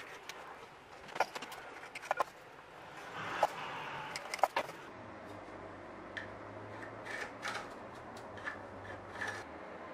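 Handling noise on a workbench: sharp clicks and knocks as a wooden strip and a black plastic part are moved and set down on a charred wooden board, the loudest about halfway. Then softer short taps and scratches of pencil marking, over a faint low hum.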